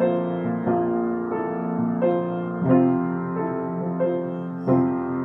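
Piano played at an even, slow pace, a new note or chord struck about every two-thirds of a second, each left ringing under the next.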